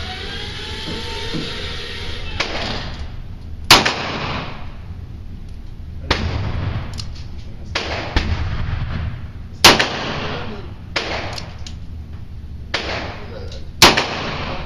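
Pistol shots at a shooting range: three loud single shots several seconds apart, with fainter shots in between.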